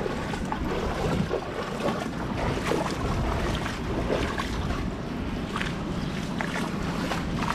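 Footsteps in flip-flops sloshing through shallow floodwater on a paved street, under a steady rush of wind on the microphone.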